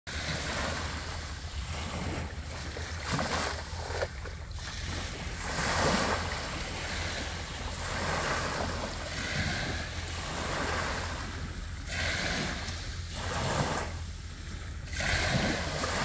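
Small sea waves breaking and washing up a sandy beach, the surf swelling and fading every few seconds, with a low wind rumble on the microphone.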